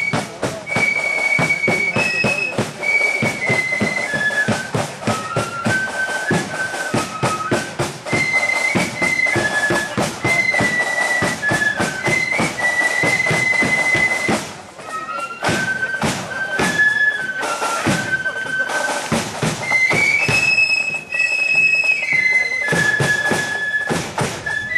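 A marching flute band playing a tune: many flutes in unison carry a stepping melody over steady drum beats.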